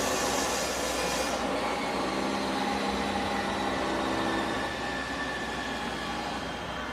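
A large vehicle running, with a steady hum of several tones; a high hiss stops about a second in, and the sound slowly fades.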